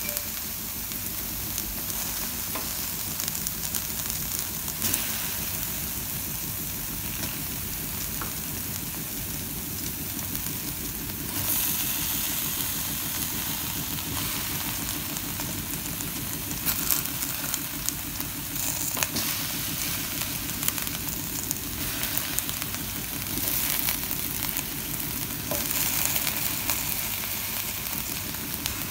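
Salmon and vegetables sizzling steadily in a hot stainless-steel Saladmaster skillet, with a few brief louder spells as more pieces are set into the pan.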